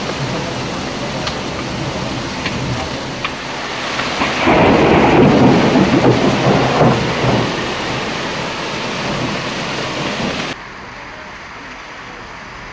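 Heavy rain pouring steadily, with a roll of thunder rumbling up about four seconds in and dying away over about three seconds. A few seconds before the end the sound drops suddenly to a quieter, lighter rain hiss.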